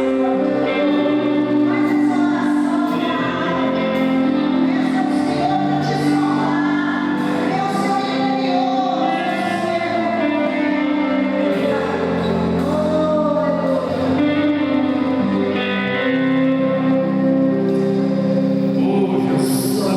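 Women's voices singing a gospel worship hymn with instrumental accompaniment, echoing in a large hall.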